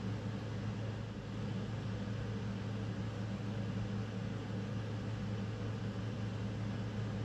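Steady low hum with an even hiss: room background noise from a running appliance or fan, unchanging throughout.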